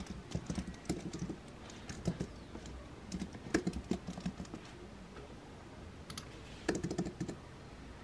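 Typing on a slim, low-profile computer keyboard: quick runs of soft key clicks in three spurts, the first about two seconds long, with short pauses between.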